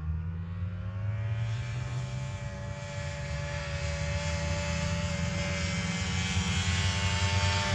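A motor's steady drone that slowly grows louder, as of an engine approaching, its pitch rising slightly near the end.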